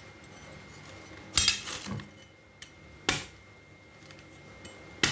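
Meat cleaver chopping into the top of a young coconut: three sharp, clinking chops about two seconds apart.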